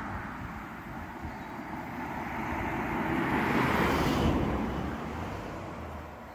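A vehicle driving past, a rushing noise that grows to its loudest about four seconds in and then fades away.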